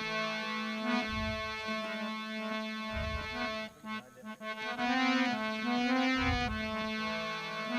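Instrumental interlude of a Rajasthani devotional bhajan: a held keyboard-like melody over a steady drone, with a few low drum strokes and a short break just before the middle.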